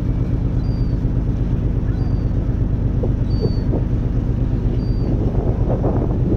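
Steady low hum of a cruise ferry's engines and machinery, with wind buffeting the microphone and growing gustier near the end. Faint short high tones repeat about every second and a half.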